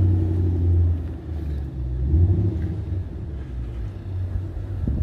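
2005 Mustang GT's V8 engine running as the car moves off at low speed. It is loudest in the first second, swells again about two seconds in, then eases off.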